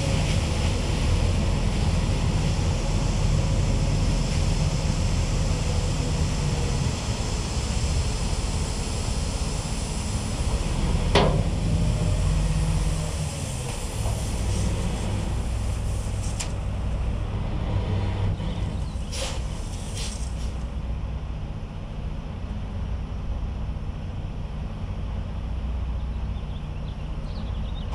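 Dump truck's engine running steadily while its raised bed tips out a load of sand, the pouring hiss of the sand thinning out after about halfway. A single sharp bang about eleven seconds in, and a few lighter knocks a little later.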